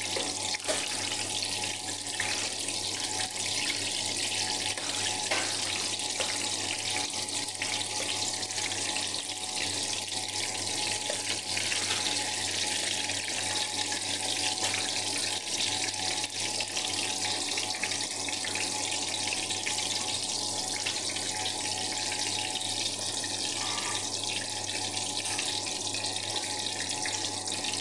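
Eggplant slices shallow-frying in hot oil in a pan, a steady sizzle as they brown toward golden.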